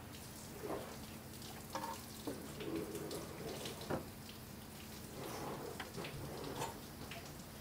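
Scattered light clicks and knocks of gloved hands working at metal fittings and hoses on a Volvo D13 engine, over a faint steady hum.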